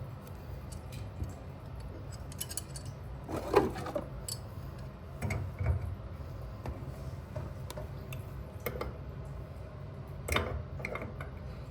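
Scattered metallic clicks and knocks of small channel-lock pliers working on an old water valve fitting, with three louder knocks, over a steady low hum.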